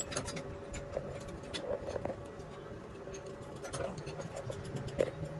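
Scattered light clicks and taps over a faint steady hum, with a sharper knock about five seconds in.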